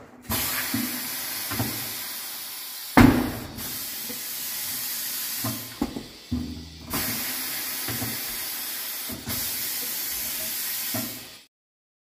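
Air hissing in long steady stretches at an ATV mud tire on a manual tire changer, broken by short pauses. A loud sharp knock comes about three seconds in, with lighter clunks as the tire and rim are worked. It stops abruptly near the end.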